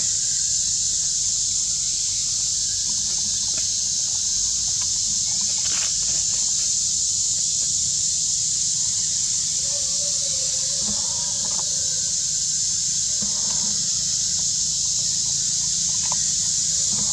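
Steady high-pitched drone of an insect chorus, unchanging throughout.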